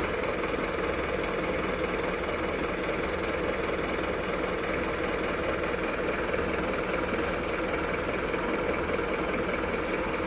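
Truck engine idling steadily, an even, unchanging drone.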